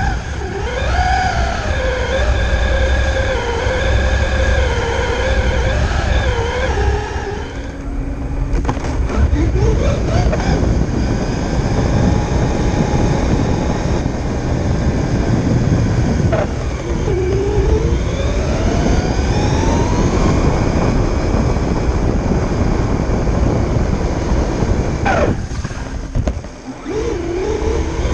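Radio-controlled Tamiya G6-01 truck's electric motor and gears whining close to the onboard microphone, the pitch rising and falling with the throttle several times, over a low rumble of tyres on concrete.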